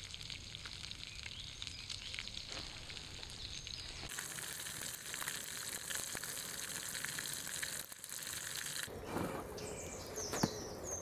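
Sausage slices and eggs sizzling and crackling in a pan over a campfire, with abrupt changes in the sound at about 4 and 9 seconds. A few bird chirps near the end.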